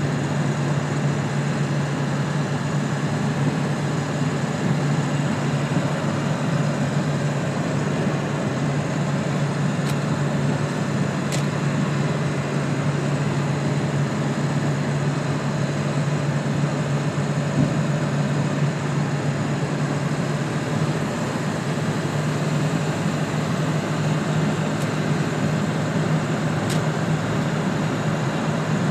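Steady cruising drone inside the cab of a 1999 Ford F-350 pickup at highway speed: a constant low hum from the drivetrain with road and wind noise over it, and a couple of faint clicks.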